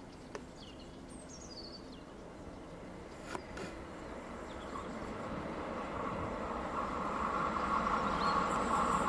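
Historic steam train approaching from inside a tunnel, its rumble growing steadily louder, with a hiss coming in near the end. Birds chirp in the first couple of seconds.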